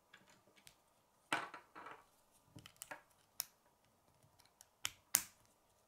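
K'nex plastic rods and connectors clicking and rattling as they are handled and snapped together: a string of sharp plastic clicks in small clusters, the loudest near the end.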